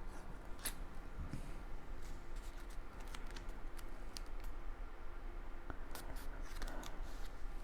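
Cardstock being handled and pressed down while gluing a paper pop-up card: scattered light clicks, taps and rustles.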